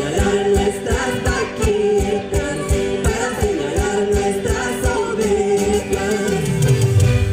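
Live Andean Santiago music from Huancavelica: voices singing over accordion, guitars and electric bass, with a steady beat. A bass run falls in pitch near the end.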